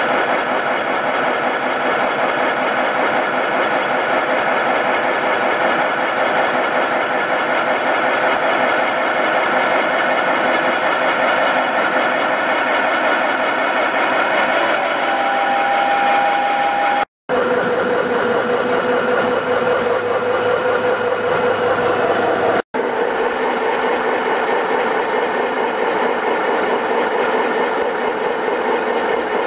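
Scratch-built 7¼-inch gauge 0-6-2 Sweet Pea-type miniature live steam locomotive under steam on its stand, giving a loud, steady hissing and running noise, broken off abruptly twice.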